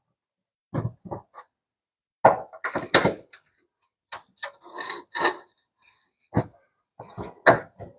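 Irregular knocks, clanks and scraping of tools and parts being handled, in short bursts with gaps between them.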